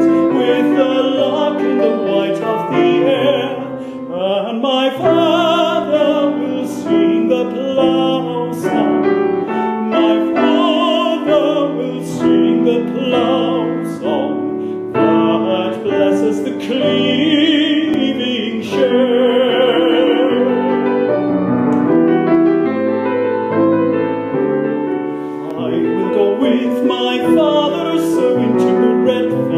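A male classical singer sings an English art song in a full operatic voice with vibrato, accompanied by piano.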